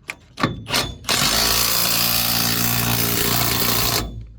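A handheld power tool runs steadily for about three seconds and then cuts off suddenly, after a few knocks and clicks.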